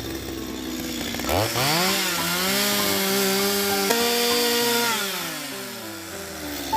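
Two-stroke chainsaw revving up sharply, held at full throttle for about three seconds, then winding back down toward idle. Background music plays underneath.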